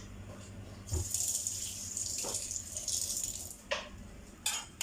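Milk-soaked eggplant frying in hot oil, sizzling and spattering loudly for a couple of seconds, followed by a few sharp knocks near the end.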